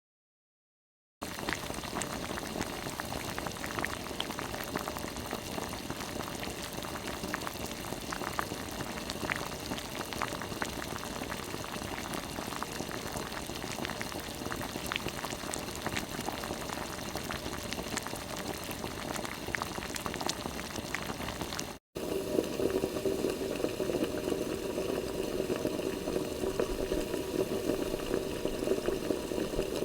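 Water at a rolling boil, a steady bubbling hiss full of small pops. After a brief break about 22 s in, a second, deeper-sounding stretch of steady bubbling water follows.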